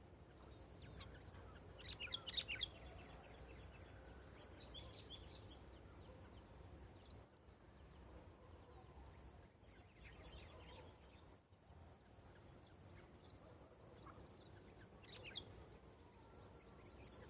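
Small songbirds chirping in short quick clusters, loudest about two seconds in, again around five seconds and briefly near the end, over a faint steady high-pitched whine.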